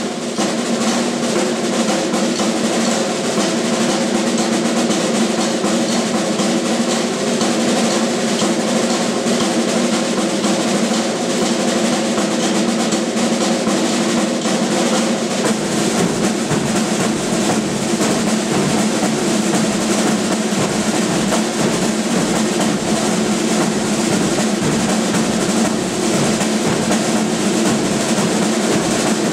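A drum ensemble of marching snare drums playing rolls and rudiments, with a button accordion holding chords underneath. About halfway through, a bass drum joins with low beats.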